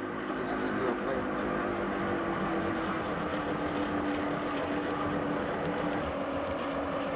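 Single-cylinder steam engine of a small steam launch running steadily, with a steady hum.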